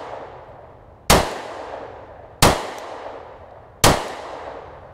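Three single pistol shots from a Glock 27 in .40 S&W, evenly spaced just under a second and a half apart, each trailing off in a long echo.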